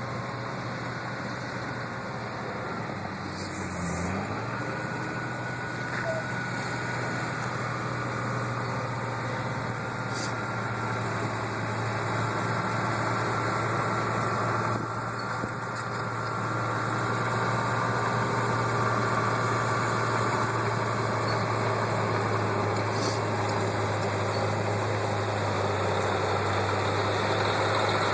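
Heavy diesel engine of earthmoving machinery running steadily. It settles into a steady low drone about four seconds in and grows slightly louder.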